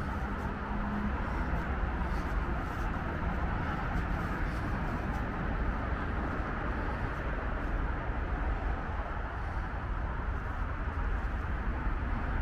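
Wind buffeting the microphone: a steady rumbling rush, with a faint low hum that fades out about a second in.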